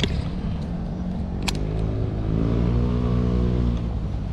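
An engine passing close by, its pitch rising and then falling between about two and four seconds in, over a steady low rumble. Two sharp clicks, one at the very start and one about a second and a half in.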